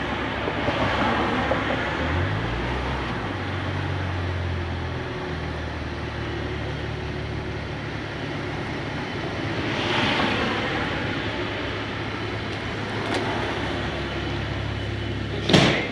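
Cadillac ATS-V's twin-turbo V6 idling steadily, with a slight rise in pitch about two seconds in. A short, loud sharp noise comes near the end.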